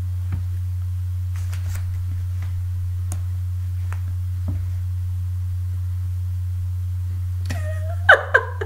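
A steady low hum, with a few faint clicks, and a short pitched sound with two sharp peaks near the end.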